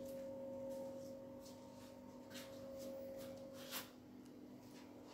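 Quiet room tone: a faint steady hum, one tone of which fades out a little under four seconds in, with a few soft clicks.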